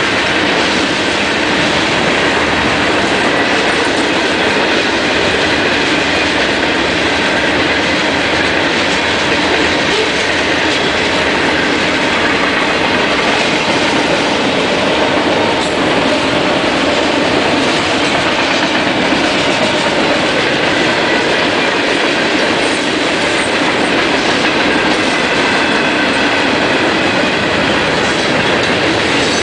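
Freight cars of a manifest train rolling past at speed: a steady, loud rumble and clatter of steel wheels on the rails that does not let up.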